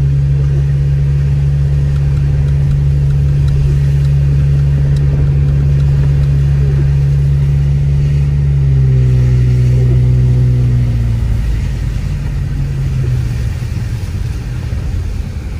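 Car engine and drivetrain droning steadily inside the cabin while driving on a slushy road. The note drops about nine seconds in and fades somewhat over the last few seconds as the car eases off.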